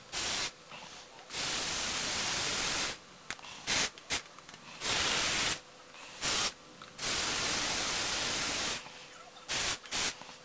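Motorized Lego Technic truck's electric drive motor and plastic gears running in spurts, a noisy whir that starts and stops about ten times, the longest runs lasting one to two seconds.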